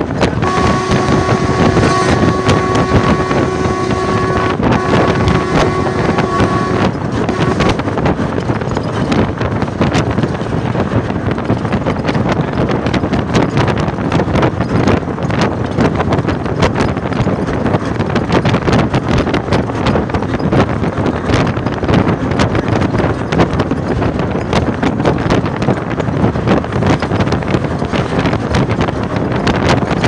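Wind buffeting the microphone and the running noise of a moving road vehicle, filmed through its open window. A steady pitched tone sounds over it for roughly the first seven seconds, with a short break partway through.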